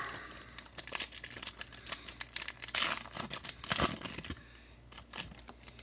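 A trading-card pack's wrapper being torn open and crinkled by hand: a run of crackling rips and rustles that dies down about four seconds in.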